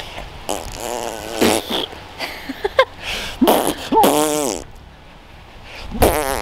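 A man making silly noises with his mouth, blowing raspberries through his lips and voicing wobbly, bending sounds in a few short spells.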